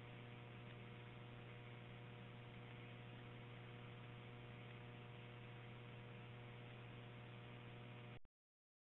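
Near silence: the faint steady hum and hiss of a recorded dispatch radio channel between transmissions, which cuts off completely about eight seconds in as the recording ends.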